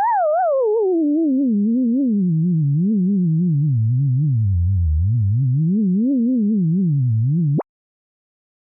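A synthesized, theremin-like tone whose pitch follows a tracer running along a shape's outline. It wobbles up and down in small zigzag steps while sliding from high to low over about five seconds, then climbs again. Near the end it sweeps sharply upward and cuts off, leaving about a second of silence.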